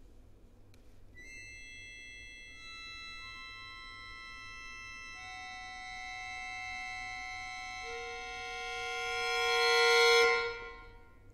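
Solo accordion holding high sustained tones, with notes entering one after another to build a chord that swells to loud near the end, then cuts off.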